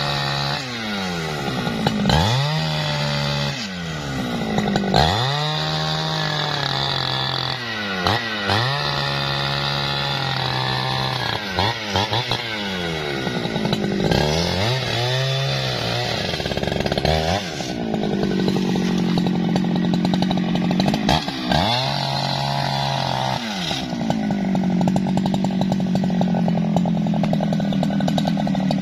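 Jonsered two-stroke chainsaw cutting through branches at high revs. The throttle is let off and squeezed again every second or two, so the engine note keeps dipping and climbing. In the second half it is held longer for steadier cuts.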